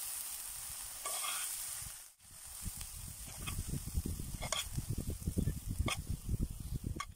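Mixed vegetables sizzling in a hot frying pan for about two seconds, then a metal spoon scraping and clinking a few times against the pan as the vegetables are spooned out.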